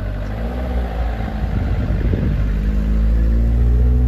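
Classic Ford Escort's engine running as the car pulls away, with the revs climbing and the engine getting louder in the last couple of seconds as it passes close by.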